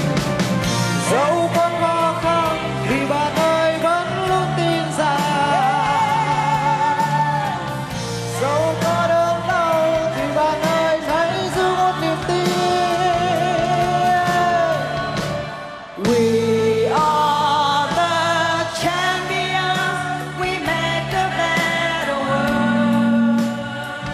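A woman singing a Vietnamese pop song with vibrato over a full band accompaniment. The music drops briefly about two-thirds of the way through, then picks up again.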